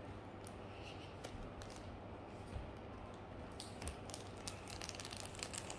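Parcel packaging being handled and opened: scattered crinkles and clicks that grow denser in the second half, over a faint steady low hum.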